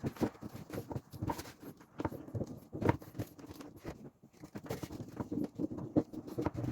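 Irregular clicks, taps and light knocks of hands handling a cracked plastic motorcycle part and fitting straps around it to clamp the broken edges together.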